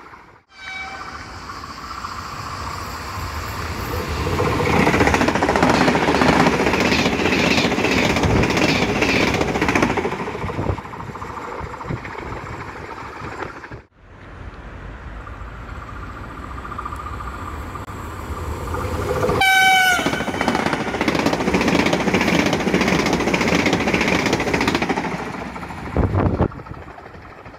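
Frecciarossa high-speed trains passing through a station at speed, two long swells of rushing wheel and air noise that build and fade. A train horn sounds briefly twice: once just after the start and once, a little longer and wavering in pitch, about two-thirds of the way in.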